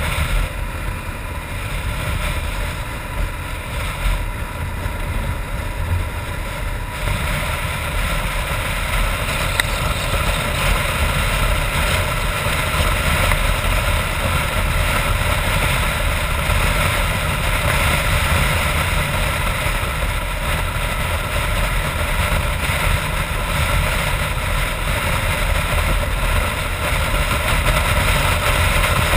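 BMW F650GS Dakar's single-cylinder engine running at road speed, mixed with steady wind rush on the helmet-mounted microphone. The wind and engine noise grow louder about seven seconds in and stay up.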